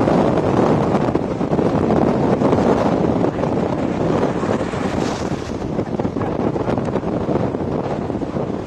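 Strong storm wind blowing across the microphone: a loud, steady rush of wind noise.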